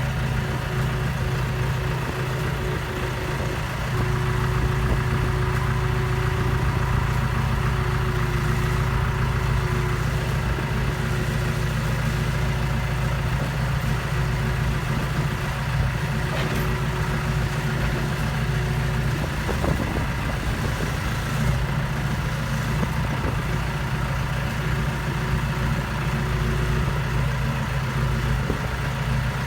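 Tractor engine running steadily at an even speed, heard up close.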